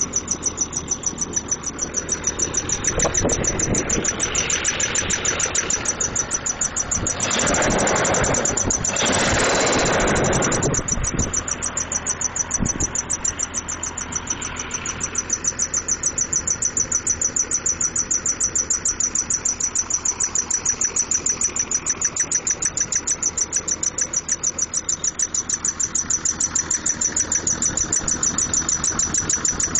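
1996 Jeep Grand Cherokee's 4.0-litre straight-six engine running with an evenly repeating knocking noise. The engine grows louder for a few seconds about a quarter of the way in. The noise is the same with the serpentine belt removed, so it does not come from the belt-driven accessories.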